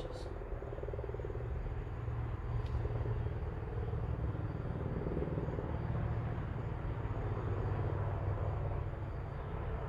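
Steady low background rumble with a slight flutter, holding level throughout.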